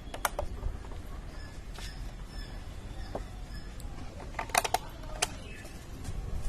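A handful of sharp clicks and taps from a scooter's plastic headlight cover being refitted and its bolts tightened, with a quick cluster of clicks about four and a half seconds in.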